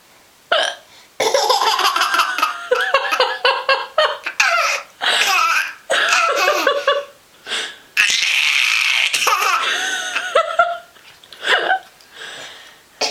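A woman hiccuping and a baby laughing at her hiccups in long, repeated bouts of laughter broken by short pauses.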